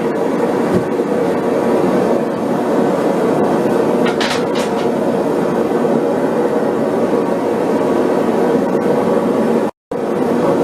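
Propane forge burner running with a loud, steady rushing noise, with a short higher hiss about four seconds in. The sound cuts out for a moment near the end.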